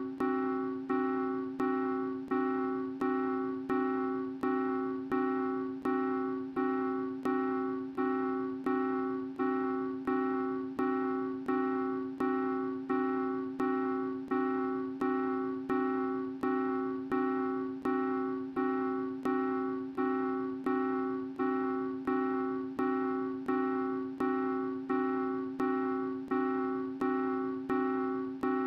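Background music: the same piano chord struck over and over at an even pace, a little more than once a second, each strike fading before the next.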